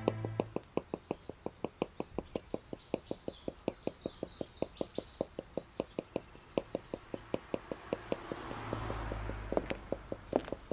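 Pencil tapping rapidly and evenly on a sketch pad, about six taps a second, with birds chirping for a few seconds partway through and a low rumble swelling near the end.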